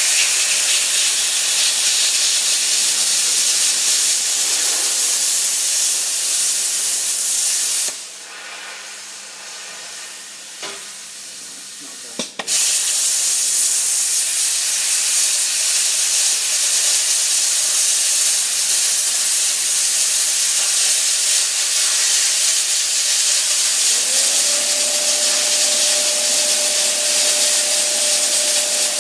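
Plasma cutter cutting: a loud, steady hiss of arc and air that stops about eight seconds in, leaving a quieter hiss of air, and starts again about four seconds later. Near the end a steady whistling tone comes in over the hiss.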